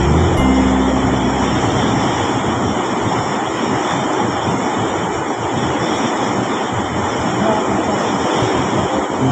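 Loud, steady rush of fast-flowing river water, an even hiss with no rhythm or pitch. Fading background music is heard in the first second or so.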